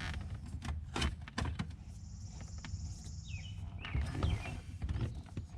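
Irregular small clicks and rubbing as the shifter knob is threaded onto the shift lever of a 1984 Corvette's 4+3 manual transmission, over a steady low rumble. A few short falling chirps come through in the background.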